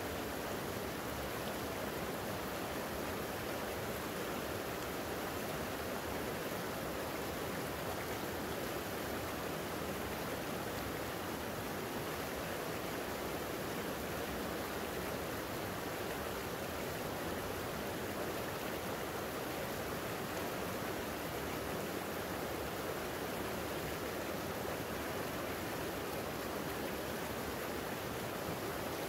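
Creek water flowing and rushing over its bed, a steady, unbroken rush.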